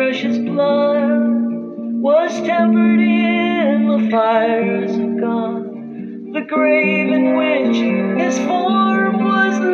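A man singing a slow, held melody live to his own acoustic guitar accompaniment, with a short break in the singing about six seconds in.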